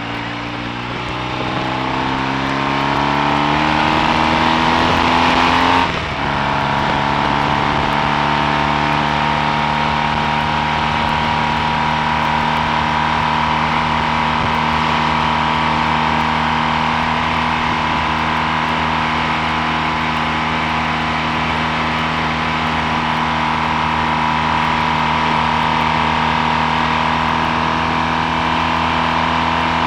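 Triumph T140V's 750 cc parallel-twin engine under way, rising in pitch as it accelerates, with a short break about six seconds in, then running at a steady speed.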